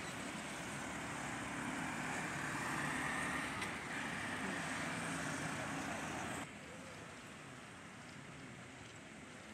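Road traffic passing close by, with a truck and a three-wheeled CNG auto-rickshaw engine running over steady road noise. About two-thirds of the way through it cuts off abruptly to a quieter steady hiss.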